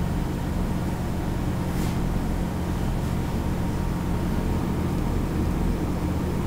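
A steady low hum with a constant hiss under it, unchanging throughout.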